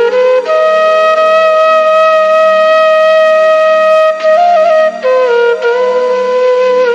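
Flute playing a long held note, with a brief higher turn about four and a half seconds in, then settling on a lower held note, over a faint low steady drone.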